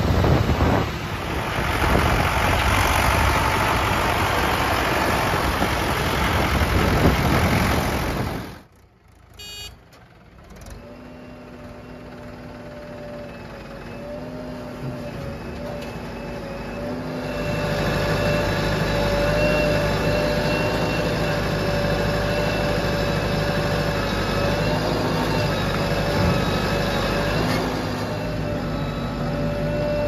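A JCB 3DX backhoe loader's diesel engine driving on a road, with tyre noise. After a brief drop it switches to diesel engines running at a worksite with a steady hum and high whine, which grows louder from about 17 seconds in as the backhoe digs and loads mud into the tractor trolley.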